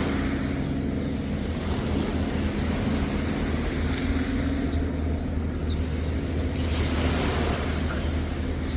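Waves washing onto a beach, with a surge of surf about seven seconds in, over a steady low engine hum. A few faint bird chirps come around the middle.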